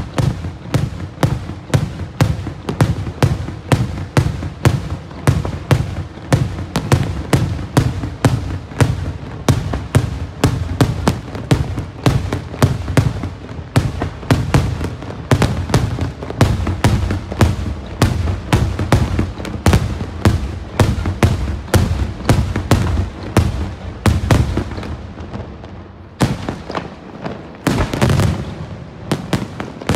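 Daytime firework display: aerial smoke shells bursting in a rapid, continuous barrage of bangs, several a second. Near the end there is a short lull, followed by a few louder bangs.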